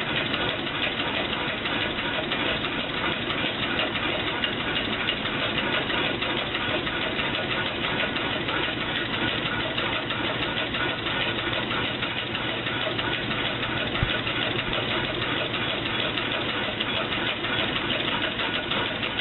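Home-built compressed-air piston engine running steadily: a continuous rapid hiss and clatter of air exhausting from the cylinders, with the flywheel spinning. A single sharp click about 14 seconds in.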